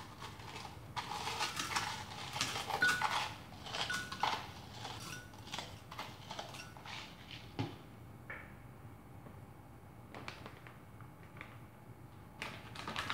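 Ice cubes tipped from a bag into an empty blender jar, clattering densely for a few seconds. Scattered clinks and knocks follow as the last pieces drop and settle.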